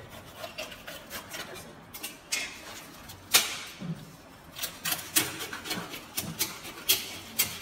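Knife cutting into a large golden trevally on a cutting board: a run of sharp clicks and knocks as the blade works at the head and through the body, the loudest about three and a half seconds in.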